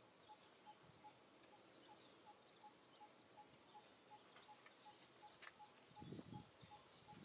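Near silence: faint outdoor ambience with distant bird chirps and a soft note repeating evenly about three times a second.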